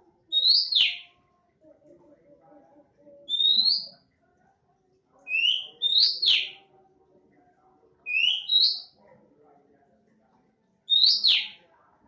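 Oriental magpie-robin (kacer) calling in the sharp 'nembak' style. It gives loud, short whistled phrases, each a quick rising note dropping into a falling sweep, repeated about every two to three seconds.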